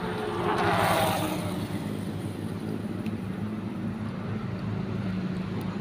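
A steady low engine hum, as of a motor vehicle running, with a brief louder swell of noise about a second in.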